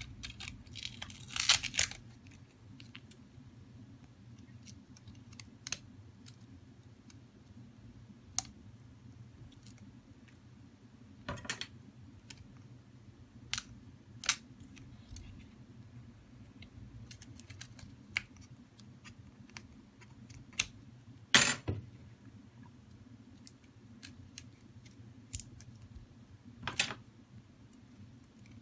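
Scattered small clicks, taps and scrapes of a Huawei Nova 5T smartphone's parts and a pry tool being handled during disassembly, with a louder clatter just after the start, the loudest about three-quarters of the way through, and another near the end. A faint steady low hum runs underneath.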